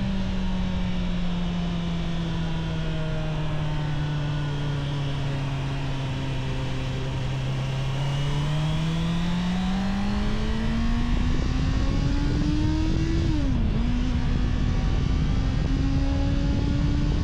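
Honda CBR650R's inline-four engine on its stock exhaust, under way: the engine note falls slowly as the bike rolls off, then rises under acceleration, drops sharply at an upshift about 13 seconds in, and holds steady near the end.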